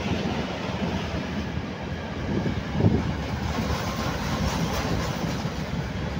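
Freight train of open-top gondola wagons rolling past: a steady rumble of steel wheels on rail, with a louder thud about three seconds in.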